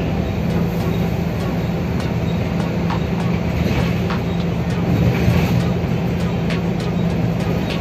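Steady engine drone and road noise of a moving bus, heard from on board: an even low hum over rumbling noise.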